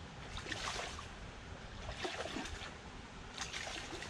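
River water trickling and lapping against the rocks at the water's edge over a steady low rush of the stream, with short splashy flurries about half a second, two seconds and three and a half seconds in.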